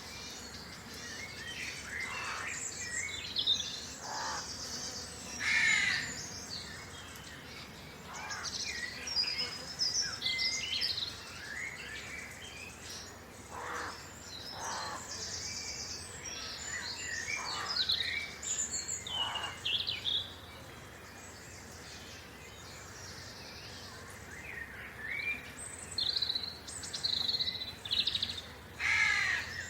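A countryside bird chorus: many birds chirping and singing in overlapping calls, with several louder, lower calls rising out of it, and insects buzzing in short high stretches at times.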